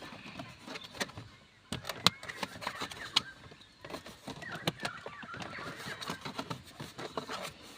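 Scattered light clicks and taps of hands and a screwdriver working around plastic steering column covers.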